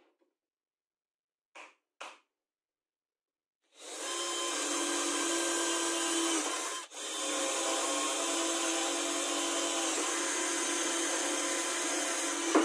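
Cordless drill with a twist bit drilling holes through a black-faced plywood board. It starts a few seconds in, runs steadily, stops briefly about seven seconds in, then runs again.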